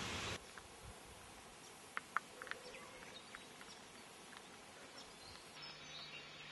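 Faint outdoor bush ambience with a few short bird chirps about two seconds in; a low steady hum comes in near the end.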